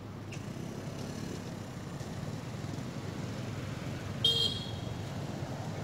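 A brief, high-pitched vehicle horn toot about four seconds in, over a steady low background rumble of distant traffic.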